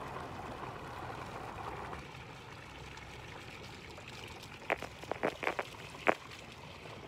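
Swimming-pool water trickling and lapping, easing slightly after about two seconds. About two-thirds of the way in comes a quick run of several sharp knocks, the last one the loudest.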